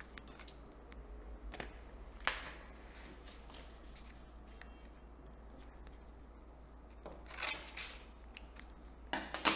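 Brown gummed paper tape being unrolled from its roll and handled on a table: sparse light clicks and rustles, with a louder cluster of crisp paper sounds near the end.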